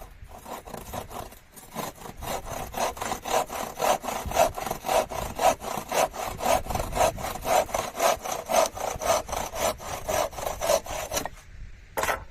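Hand saw cutting through wood, with quick, regular back-and-forth strokes, about three a second, that stop shortly before the end; one last stroke follows.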